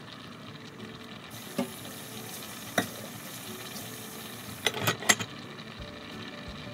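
Black sticky rice (tapol) boiling in a saucepan with a steady hiss and bubbling, broken by sharp metal clinks of cookware: one at about a second and a half, another just under three seconds in, then three close together near five seconds.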